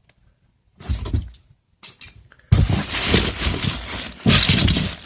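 Hands rummaging through a box of packaged diecast toy cars: rustling plastic and cardboard with light clattering. It starts as two short bursts about a second and two seconds in, then becomes loud and continuous from about halfway.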